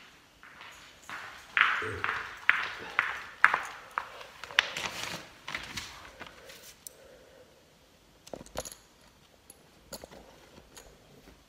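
Handling noise close to the recording phone: a run of about five sharp knocks and rustles in the first half, then a few faint clicks.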